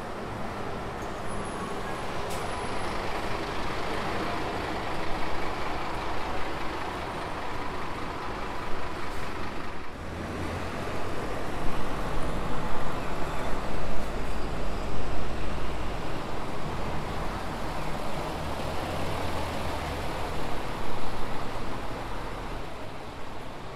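City buses driving past: engine and tyre noise of an articulated bus moving off, then about ten seconds in a second bus passes close with a heavier, deeper engine rumble that swells twice.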